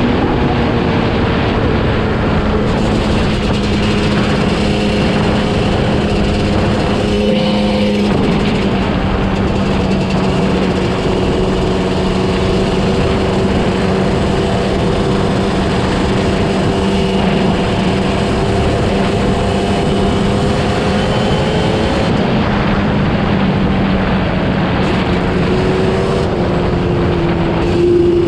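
Yamaha Banshee's twin-cylinder two-stroke engine running at steady speed under way, with wind noise on the microphone. The engine note drops a little about eight seconds in and rises again near the end.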